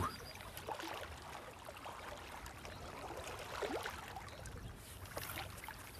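Faint, steady lapping and trickling of small lake waves against the bank.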